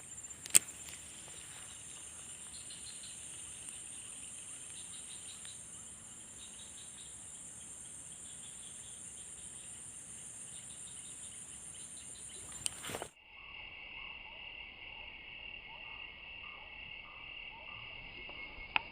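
Insect chorus of crickets: a steady high-pitched shrill with faster pulsing chirps beneath it, and one sharp click about half a second in. About two-thirds of the way through, the sound abruptly becomes duller and lower.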